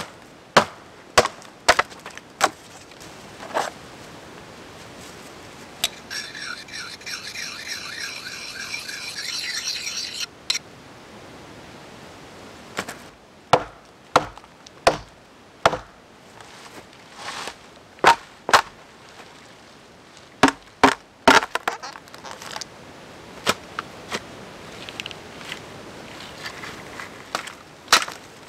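Sharp cracks and snaps of branches and twigs being broken and handled while building a bushcraft shelter, coming in clusters about once a second. About six seconds in there is a higher rasping sound that lasts about four seconds and stops abruptly.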